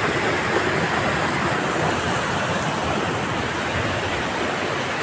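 Waterfall water rushing steadily over rocks, a continuous even rush.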